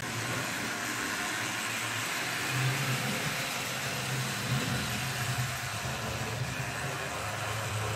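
Electric model railway trains running on the layout's track: a steady whirring hum of locomotive motors and wheels on the rails.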